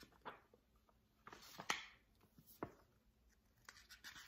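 Faint rustling of a picture book's paper pages being turned, with a few soft clicks.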